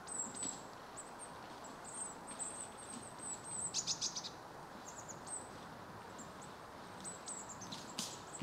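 Small songbirds calling: many thin, very high-pitched chirps, with a quick run of notes about four seconds in. A sharp click near the end.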